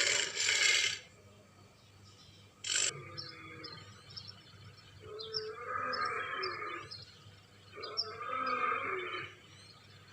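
Big-cat growls and snarls, sound effects made up for the extinct American lion. Two loud harsh snarls open, a sharp snarl comes near three seconds in with a short falling growl after it, and two longer rumbling growls follow, one in the middle and one near the end.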